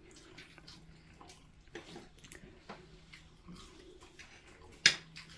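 Cutlery clicking and scraping on plates as people eat: scattered light clicks, with one sharp, louder clink near the end.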